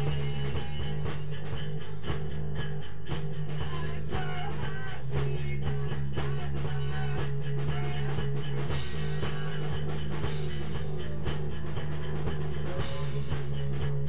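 Improvised psychedelic rock jam: guitar playing over a steady drum beat, with a sustained low drone underneath.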